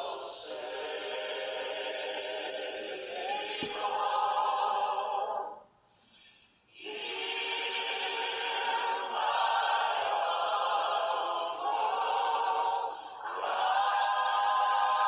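Worship song sung by a choir, with long held notes and a short break in the singing about six seconds in.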